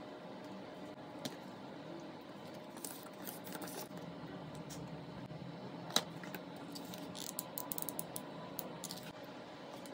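Wooden popsicle sticks and a hot glue gun handled on a wooden tabletop: scattered light clicks and taps, one sharper click about six seconds in, and a quick run of small clicks near the end.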